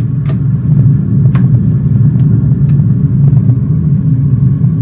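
Airbus A320 flight simulator's cockpit sound: a loud, steady low rumble of simulated engine and airflow noise. Four sharp clicks sound over it in the first three seconds.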